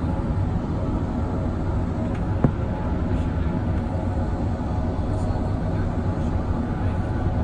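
Steady deep rumble of an airliner's engines and airflow heard from inside the passenger cabin in flight, with one short click about two and a half seconds in.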